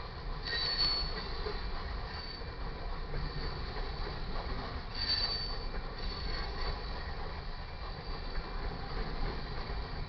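Cars of a loaded coal train rolling by with a steady low rumble, and high-pitched wheel squeals about half a second in and again around five seconds in.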